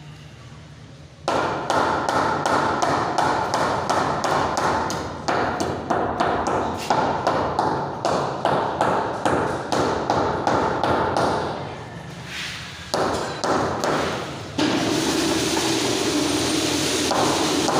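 Rubber mallet tapping a granite stair tread again and again to bed it into the mortar: a quick run of knocks, a few a second. Near the end a steady noise takes over.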